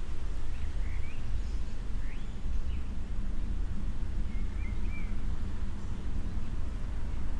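Steady low rumble of outdoor city background noise, with a bird giving a few short chirps in three brief bursts during the first five seconds.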